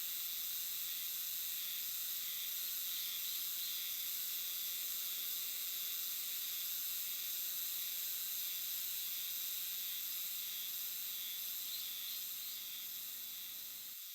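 A chorus of many Euterpnosia chibensis cicadas (himeharuzemi) calling together in a continuous, high-pitched, overlapping 'jiwaa jiwaa' shimmer that fades out over the last couple of seconds.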